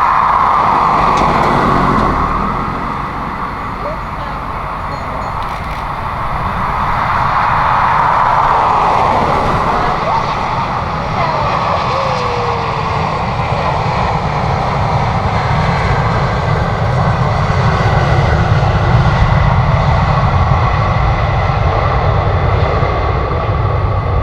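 Jet airliner passing, its engine noise a steady rush that dips a few seconds in and then builds again, with a deeper rumble growing louder in the second half.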